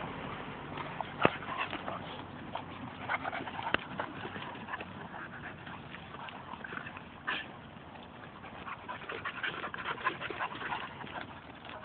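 Dogs at play, making scattered short sounds, with a few sharp clicks or knocks about one, four and seven seconds in.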